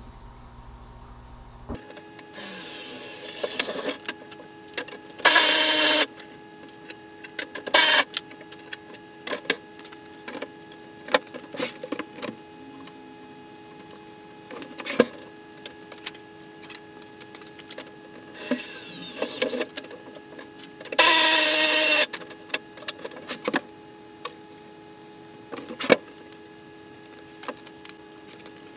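Power drill boring into the plastic ice-shanty shell twice, each time a short whine followed by about a second of loud drilling. Scattered knocks and rattles of the plastic shell being handled come between the two runs, over a steady hum.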